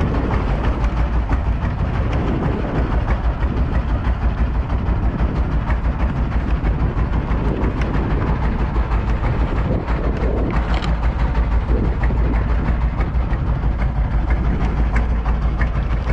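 Engine aboard a small fishing boat running steadily at low speed, a deep, fast, even throb.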